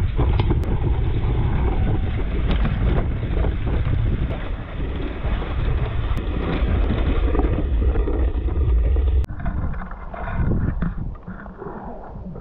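Strong wind buffeting the microphone, a loud steady rumble that drops away suddenly about nine seconds in, leaving quieter, uneven noise.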